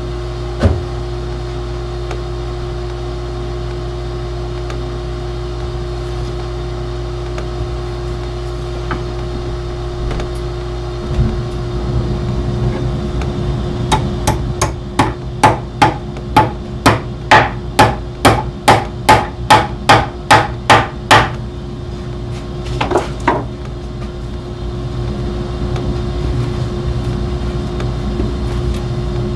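Hammer driving upholstery tacks into a wooden chair frame to fasten seat webbing strips. A quick, even run of sharp taps starts about halfway through and lasts about seven seconds, growing louder, with a couple more strikes shortly after.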